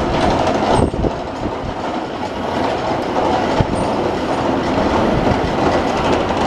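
Avió airplane ride in motion: a steady mechanical rumble and rattle, with many small irregular clicks and knocks.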